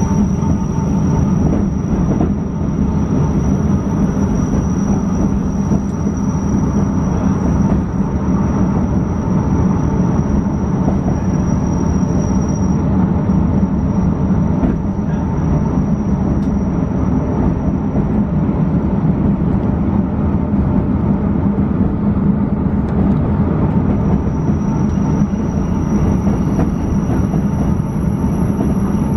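Metre-gauge Matterhorn Gotthard Bahn passenger train running, heard from inside the carriage: a steady rumble of wheels on track. A thin high whine over it fades about halfway through, drops out a little past twenty seconds in, and comes back shortly after.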